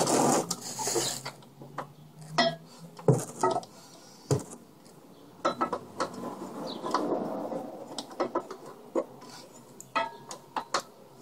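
Irregular metallic clinks and knocks of tools and parts being handled on a lawnmower, with a longer stretch of noise about seven seconds in.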